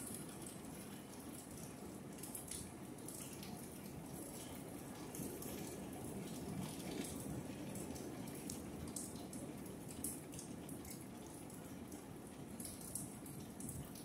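Food cooking in a closed, lidded pot: a steady low bubbling with scattered small pops and crackles.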